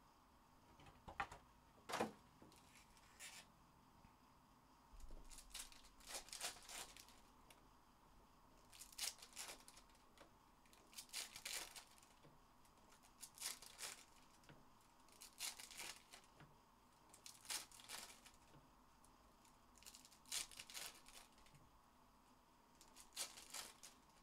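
Faint tearing and rustling from 2022-23 Panini NBA Hoops trading card packs and cards being handled, in short bursts about every two seconds.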